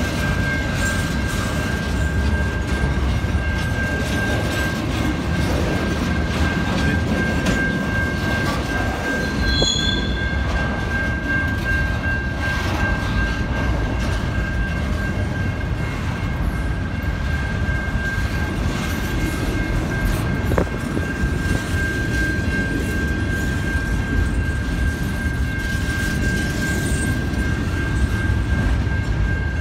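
Double-stack container freight cars rolling past on the rails: a steady, unbroken rumble of wheels on track, with a continuous high-pitched squeal over it.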